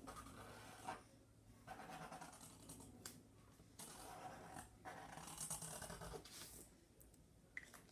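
A felt-tip permanent marker drawn across paper in short, faint strokes, with brief pauses between them.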